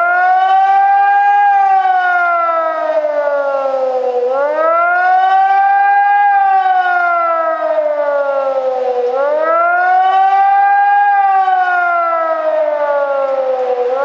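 Civil defence siren sounding the rising-and-falling warning wail of a test alarm. The pitch climbs for about two seconds, then sinks for nearly three, three times over.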